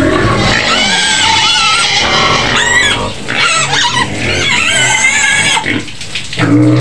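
A pen of white piglets squealing, loud shrill cries that waver in pitch and overlap, with brief let-ups about three seconds in and again near the end.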